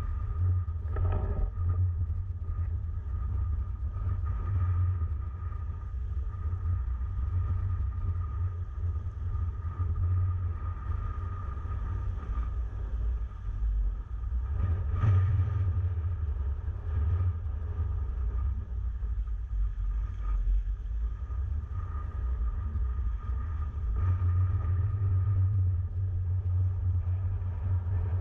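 Strong wind buffeting a GoPro's microphone: a steady low rumble that swells with gusts a few times.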